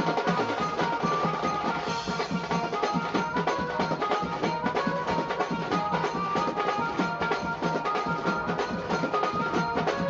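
Music with fast, busy drumming under a steady held melody.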